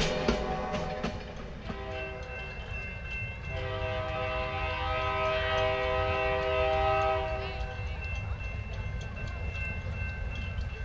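Wheels of a passing Amtrak passenger train clatter over rail joints, then give way about two seconds in to a diesel locomotive's chime horn. The horn sounds one long blast of about six seconds that grows louder partway through.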